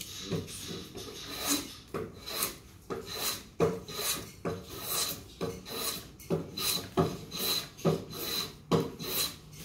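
Rhythmic scraping strokes on a wooden beam, about two a second.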